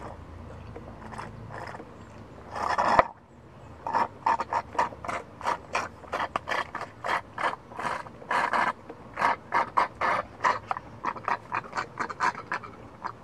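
Slurping the last dregs of a chocolate milk drink through a straw from a nearly empty drink carton, with a rapid series of short, rattling sucks about three a second. A louder, longer slurp comes about two and a half seconds in.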